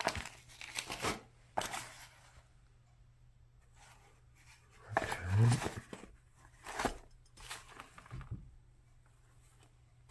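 Old paper embroidery transfer patterns rustling and crinkling as they are handled and leafed through in a wicker basket, in several short bouts with quiet gaps between.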